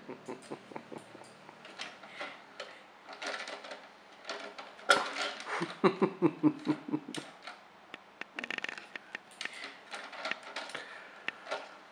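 Plastic clicking and clattering of a CD-ROM drive's open tray as a kitten paws and bats at it, shifting the drive. There is a run of quick rattling knocks about halfway through.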